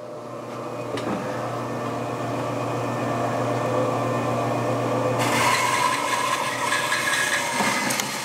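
Bandsaw running with a steady hum; about five seconds in the blade starts cutting through wood, adding a louder hissing rasp.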